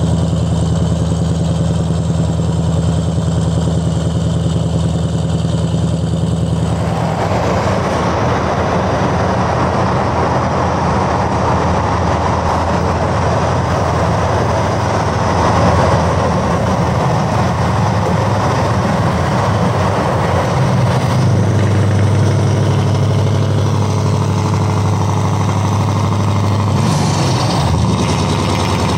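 Scania R580's V8 diesel running under way through an open, unsilenced exhaust pipe, with tyre and road noise. The engine note is steady at first, turns fuller and noisier about seven seconds in, and shifts again in the last third, with a brief rising sweep near the end.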